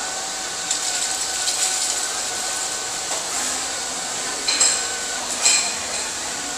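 Small robot floor vacuum running: a steady motor whine over a high hiss, with two sharp clinks about a second apart in the second half.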